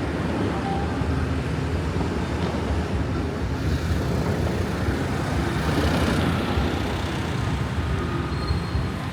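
Road traffic: a steady low rumble of passing vehicles, swelling a little about six seconds in.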